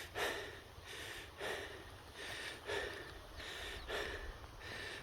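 A person breathing hard while hiking uphill, with a heavy breath about every second: out of breath from the climb.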